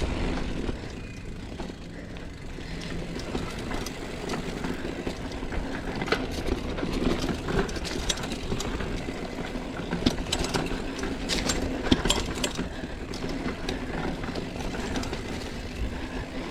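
Mountain bike rolling down a dirt trail: steady tyre and riding noise with scattered clicks and rattles.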